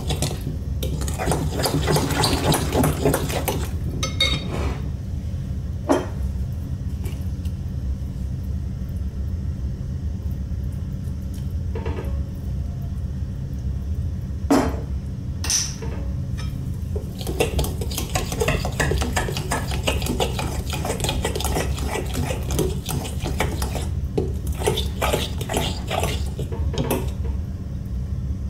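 Metal spoon stirring thick pancake batter in a glass mixing bowl, scraping and clinking against the glass. The stirring comes in two busy stretches with a quieter middle broken by a few sharp clinks, over a steady low hum.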